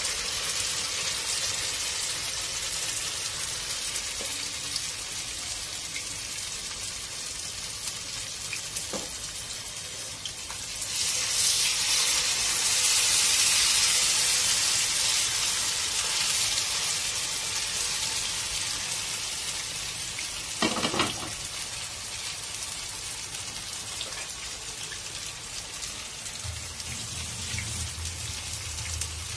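Cornflour-coated marinated chicken leg pieces sizzling in shallow hot oil in a non-stick frying pan. The sizzle swells louder about eleven seconds in, as a second piece is laid into the oil, then settles to a steady fry.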